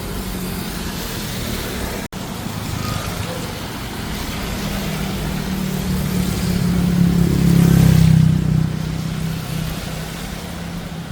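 Street traffic with a motor vehicle passing close by, its engine drone building to a peak about eight seconds in and then fading. The sound cuts out for an instant about two seconds in.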